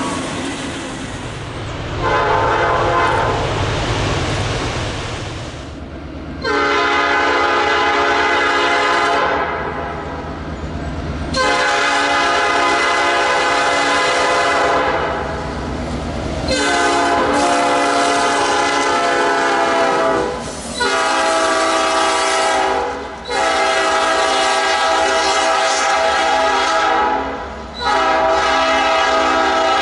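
Nathan Airchime P5 five-chime locomotive horn sounding a chord in repeated blasts: several long ones and one short one, the middle run going long, long, short, long like a grade-crossing signal. A low train rumble sits under the first half.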